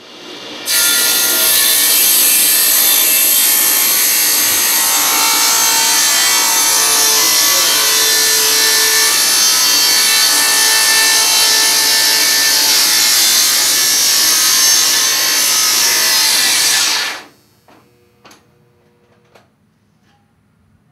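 Table saw cutting a board lengthwise along the fence: the blade runs steadily through the wood for about sixteen seconds, starting suddenly just under a second in and stopping abruptly.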